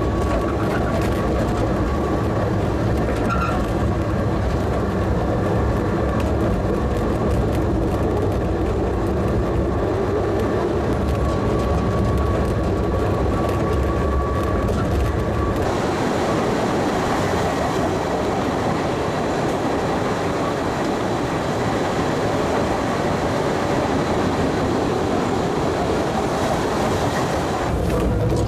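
Postojna Cave tourist train running along its narrow-gauge track: a steady rumble of wheels on rail with a thin, steady whine through the first half. About halfway through, the low rumble drops away and a brighter, harsher rushing noise takes over until just before the end.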